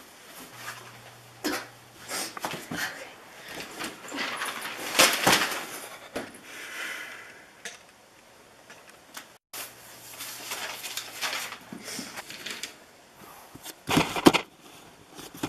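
Scattered rustling and knocking of a person moving about and handling things in a small room, loudest about five seconds in and again near the end, with a brief complete dropout about nine seconds in.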